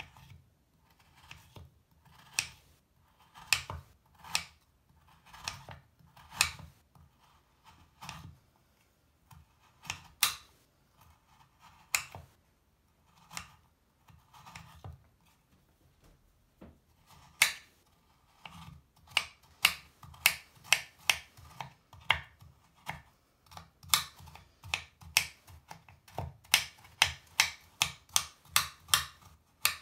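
Kitchen knife cutting through a crumbly bubble bar and striking the cutting board: separate crunching cuts, slow and spaced at first, then quicker chopping at about two a second from about two-thirds of the way in.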